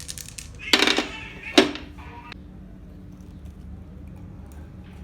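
Metal parts knocking and clattering while a pump is worked on, with one sharp clank about a second and a half in that rings on briefly, over a steady low hum.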